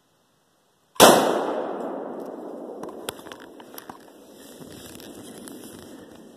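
A single 7mm-08 rifle shot about a second in, its report rolling away and fading over several seconds. A few small sharp clicks and rustling follow.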